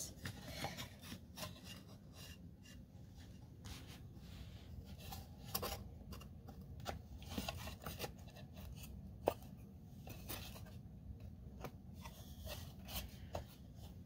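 Quiet wooden clicks, taps and rubbing as the side panels of a wooden birdhouse kit are handled and slotted together, with one sharper knock a little past the middle.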